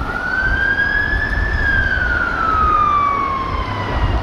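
London Fire Brigade Mercedes-Benz Atego fire engine's siren sounding a slow wail. It rises for about a second and a half, falls slowly for about two and a half seconds, and begins to rise again near the end, over a steady low rumble.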